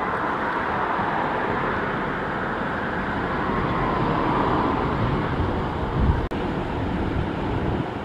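Steady outdoor roar with wind buffeting the microphone in low rumbles, the strongest about six seconds in.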